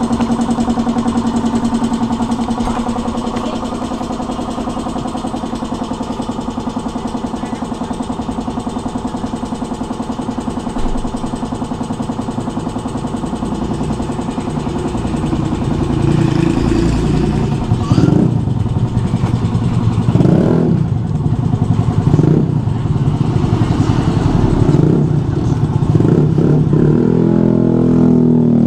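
Motorcycle engines running, a steady idle-like hum at first, then from about halfway through several revs that rise and fall in turn.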